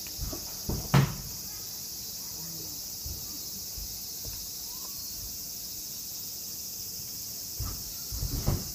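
Steady chorus of crickets. Over it come a few sharp thumps on the wooden stage floor about a second in, and a quick run of thumps near the end as the two jujutsu practitioners grapple.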